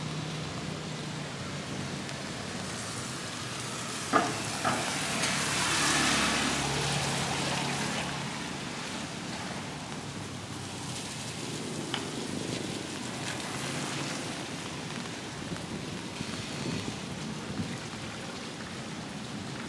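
Steady hiss of rain falling on the street, with a louder swell of noise about five to seven seconds in and two sharp knocks just after four seconds.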